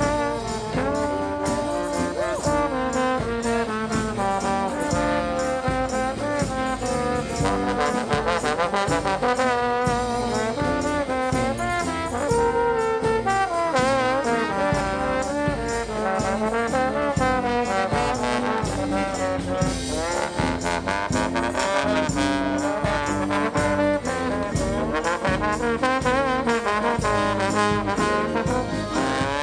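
Brass street band playing a tune: trombones and trumpets in several voices over a steady beat.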